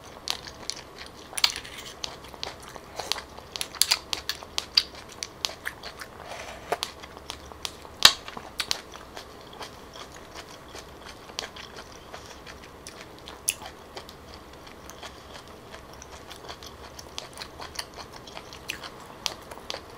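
A person chewing chewy grilled clam meat, with wet mouth sounds and scattered sharp clicks, the loudest about eight seconds in.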